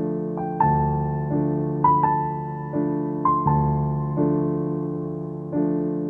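Slow, gentle piano background music: sustained chords struck about every second and a half, each fading away, with a sparse higher melody on top.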